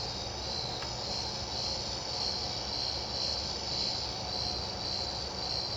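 Replacement PKE meter sound-effect board playing its high-pitched, evenly pulsing electronic warble through a tiny speaker.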